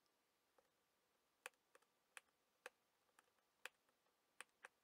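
Light, sharp clicks of small plastic model-kit parts being handled between the fingers, about eight in an uneven run starting about a second and a half in.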